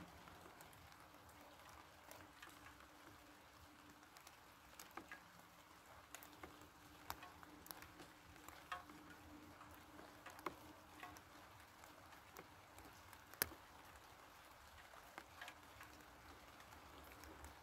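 Light rain: faint, scattered raindrops ticking irregularly on surfaces over a soft hiss, with one louder drop about two-thirds of the way through.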